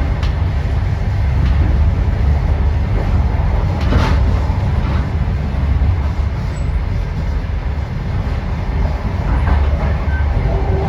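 Passenger train running: a steady heavy low rumble of the wheels and carriage, with a couple of faint knocks.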